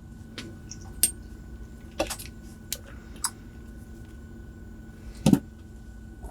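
Scattered metallic clicks and taps from a padlock and tools being handled as the lock is taken apart, about six in all, with a louder knock about five seconds in.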